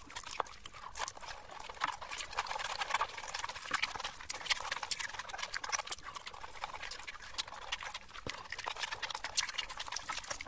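Close-miked eating by hand: wet mouth smacking and chewing, with fingers squishing through fish biryani rice, heard as a dense run of rapid, irregular clicks.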